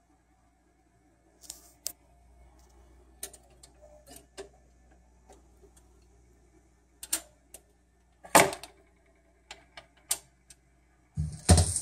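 Automatic record changer of a 1960 Grundig Majestic console stereo cycling: a run of irregular mechanical clicks and clunks, with one heavy clunk about eight seconds in, as the tone arm lifts and swings over the record. Near the end the stylus sets down and groove hiss begins.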